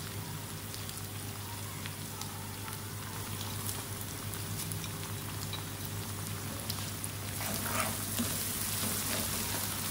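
Browned onions and oil sizzling in a nonstick wok on a gas hob as whole and ground spices are tipped in and stirred with a wooden spoon: a steady frying hiss with faint clicks and scrapes.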